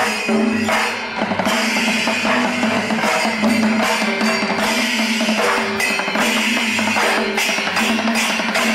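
Music with drums and percussion playing a steady beat over a few held tones.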